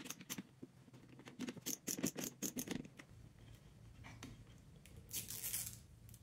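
Small screwdriver turning the bottom screw of a plastic thermostat faceplate: a quick run of faint little clicks and scrapes. Near the end comes a short rasp as the protective film is peeled off the touchscreen.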